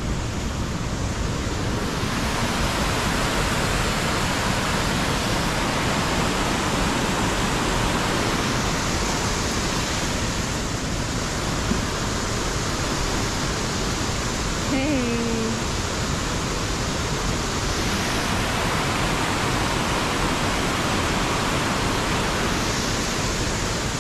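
Waterfall and river rapids rushing steadily below. A brief short falling tone is heard about fifteen seconds in.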